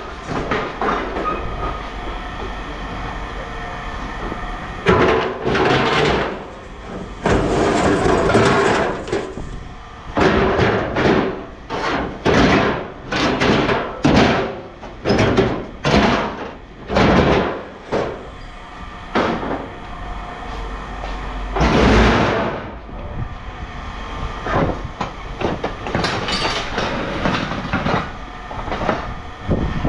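Scrap metal being handled: a run of loud metallic clanks and scrapes, about one a second through the middle, over a steady low rumble.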